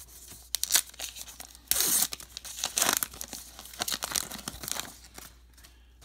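Wrapper of a Topps Gypsy Queen baseball card pack torn open and crinkled by hand, in several short tearing bursts, loudest about two and three seconds in, then settling as the cards come out.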